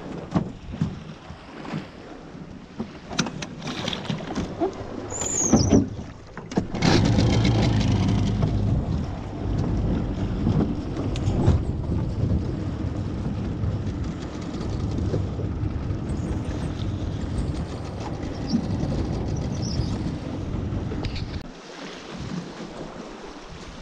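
Boat motor running steadily under way, with wind rushing over the microphone. It comes in loudly about seven seconds in after a few knocks, and drops off a couple of seconds before the end.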